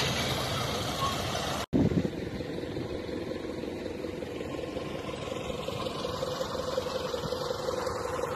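Tractor engine running steadily. It breaks off for an instant about two seconds in, then continues as an even idling hum.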